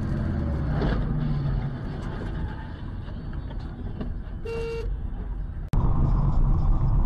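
Car on the move at highway speed, with steady road and engine noise. A vehicle horn sounds once, for about half a second, a little after four seconds in. Then the sound cuts abruptly to a different, louder road noise.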